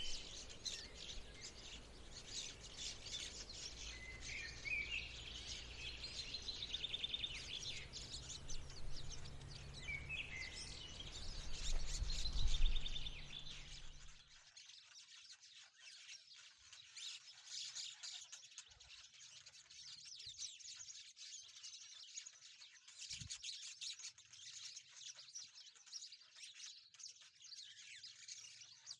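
Rosy-faced lovebirds chirping and chattering in quick, high calls. A low rumble lies under the first half and stops abruptly about halfway, after which the chirping runs thick and continuous.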